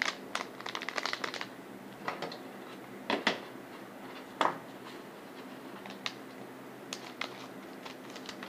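Plastic blind bag being handled and opened: scattered crinkles and small clicks, with a quick patter of them about a second in and a few sharper single crackles after that.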